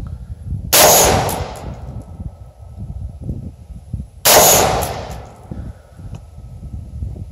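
Two rifle shots about three and a half seconds apart, each a sharp crack with a ringing tail of about a second: an AR-15-style rifle firing Wolf 55-grain FMJ .223 ammunition. Wind rumbles on the microphone between the shots.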